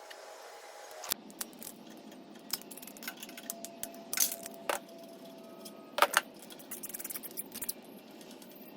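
Metal tools and parts clinking and clicking, single sharp clinks about four and six seconds in and a quick run of clicks soon after.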